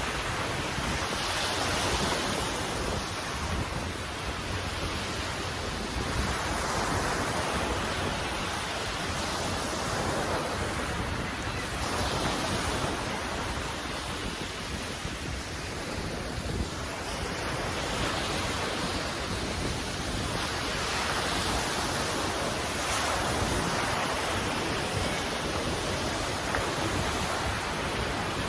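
Ocean surf washing in, swelling and easing every few seconds, with wind rumbling on the microphone.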